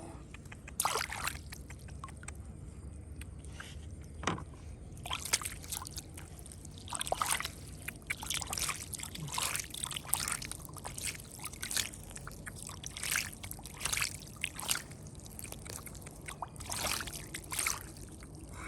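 Water splashing and sloshing in irregular bursts, over a steady low rush of flowing water.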